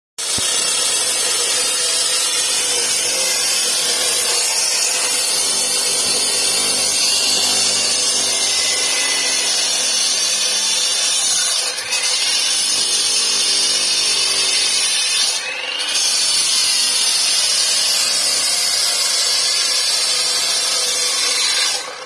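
Handheld power cutter with a disc blade cutting through a concrete lintel: a loud, steady, high-pitched grinding cut that dips briefly twice partway through.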